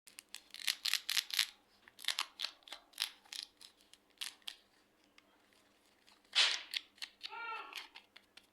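Clear slime with soft clay mixed in being pressed and squished by hand: a run of sharp sticky clicks and pops, then a louder squelch about six seconds in followed by a short squeak of air forced out of the slime.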